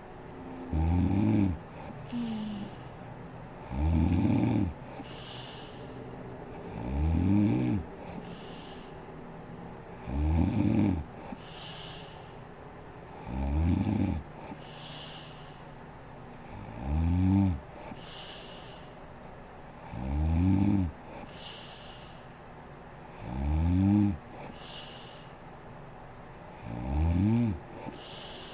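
A sleeping woman snoring loudly and regularly: nine low snores, about one every three seconds, each rising in pitch over about a second, and each followed by a breathy hiss of breath.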